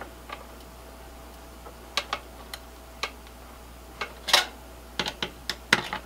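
Scattered light metallic clicks and taps as a server CPU heatsink is seated and a screwdriver engages its mounting screws. One sharper click comes about four seconds in, and a quick run of clicks near the end.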